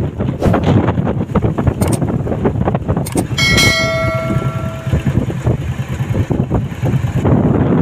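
Strong wind buffeting the microphone, with one metallic bell-like clang about three and a half seconds in that rings on and fades over about a second and a half.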